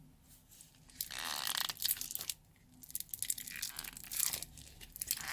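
Small plastic glue bottles being squeezed out by hand, the plastic crinkling and crackling in irregular bursts, the first about a second in and a longer run from about three seconds in.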